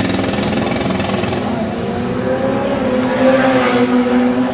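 Go-kart engine running as the kart drives off down the straight, its pitch rising a little about two seconds in, then holding steady.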